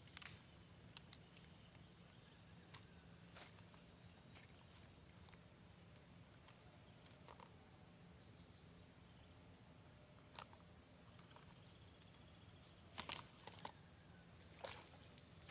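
Near silence outdoors: a faint, steady high-pitched insect drone, with a few soft clicks and a short cluster of taps near the end.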